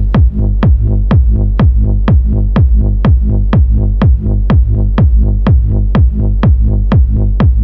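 Electronic dance music stripped down to a kick drum on every beat, about two hits a second, each dropping in pitch, over a steady low bass.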